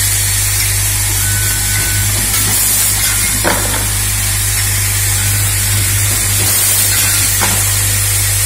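Automatic screw-locking assembly machine running: a steady low hum under a constant hiss, with a sharp clack about every four seconds from its pneumatic grippers and indexing table.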